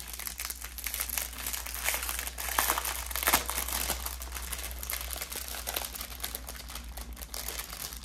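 Crinkling plastic packaging as a strip of small bags of diamond-painting rhinestones is handled, with irregular crackles throughout.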